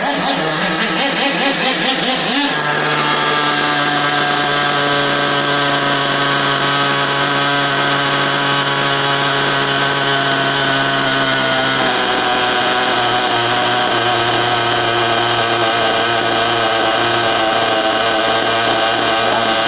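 Small nitro-fuelled RC car engine running at a steady speed with a high, buzzing note. Its pitch shifts up slightly a couple of seconds in and settles lower about twelve seconds in.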